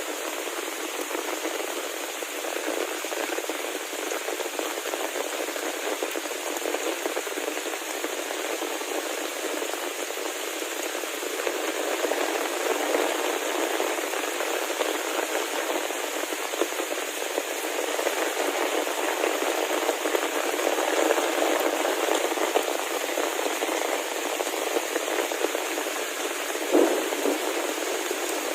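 Heavy rain falling in a steady, even hiss, growing a little louder about halfway through, with one sharper tap near the end.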